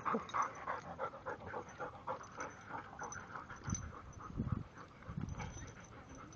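Dog panting quickly and rhythmically, about four or five breaths a second, with a few low thumps in the second half.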